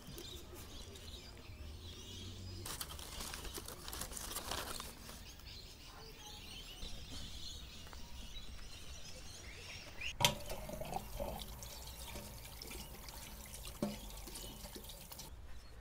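Tap water running into a stainless-steel sink, splashing over a hand being rinsed, with a sharp click about ten seconds in.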